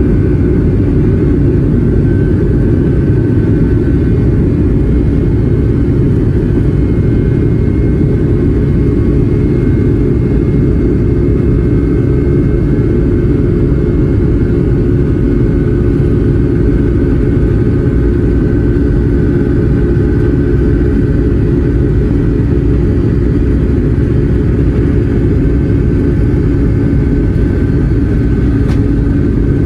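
Steady engine rumble of a Boeing 757-200 inside the passenger cabin, holding an even level with a faint steady whine above the low roar.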